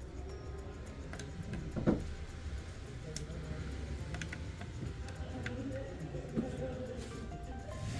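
Screwdriver turning screws out of a plastic Bluetooth speaker housing: scattered small clicks and ticks over a low hum, with a sharper knock about two seconds in and another near six and a half seconds.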